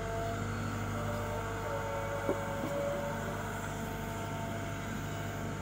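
CAT M314 wheeled excavator's diesel engine running steadily, with steady tones that shift in pitch now and then as the rotating grab swings a concrete curb; a single short knock a little over two seconds in.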